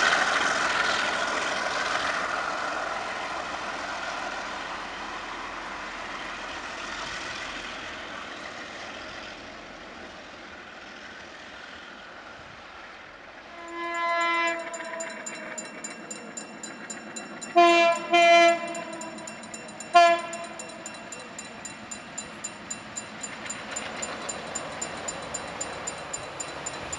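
A freight train rolls away and fades out. Then a diesel locomotive's horn sounds as the train approaches: one blast about halfway through, two short blasts some four seconds later, and one more short blast two seconds after that. In the last few seconds there is an even clicking, about twice a second, as the train nears.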